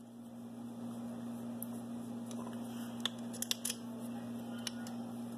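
Small metallic clicks and taps as a scooter engine's stock oil pump is pushed into its seat in the aluminium crankcase by hand, a handful of them about three to five seconds in, over a steady low hum.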